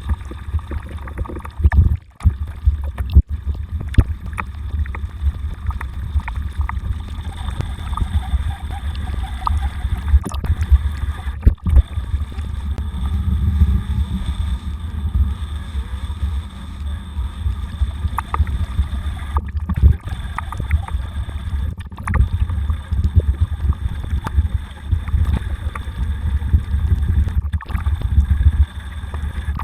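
Wind buffeting a bike-mounted camera's microphone while riding, a heavy uneven low rumble with scattered clicks and rattles.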